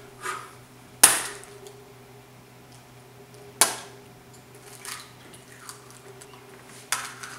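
Eggs knocking sharply on a granite countertop as they are cracked: two loud knocks, about a second in and at about three and a half seconds, with a few fainter taps later.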